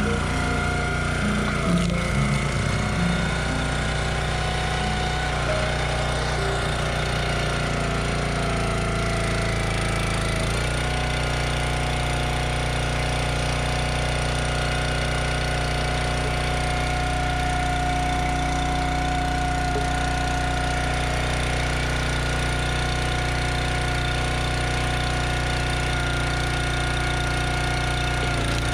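Log splitter's small engine running steadily, its note shifting a few times in the first ten seconds and then holding level.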